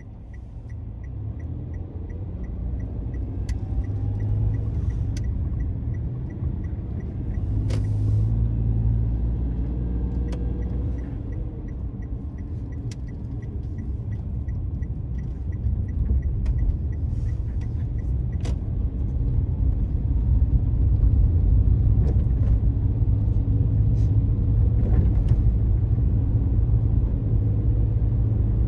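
Car engine and road rumble heard inside the cabin as the car pulls away and gathers speed, growing louder over the first several seconds with faint rising engine pitch, then running steadily.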